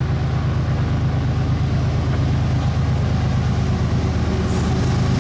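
Steady, low rumble of a freight train's diesel locomotives running as the train approaches.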